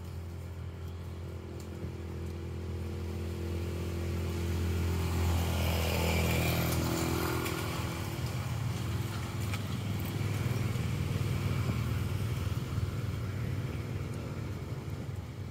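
Engine of a passing motor vehicle: a low, steady engine hum that grows louder to a peak about six seconds in, then eases off as it moves away.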